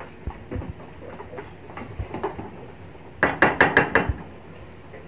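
Wooden spatula stirring chicken pieces in an aluminium pan, knocking and scraping against the metal, with a quick run of about six sharp knocks a little past the middle.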